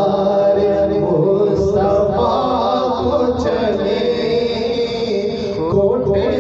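A man singing an Urdu naat into a handheld microphone, in long held, ornamented vocal lines.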